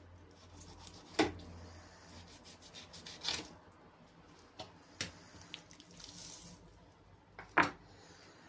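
Knife cutting and scraping a raw salmon on a cutting board: wet rubbing and squishing, with a few sharp knocks, the loudest about a second in and near the end.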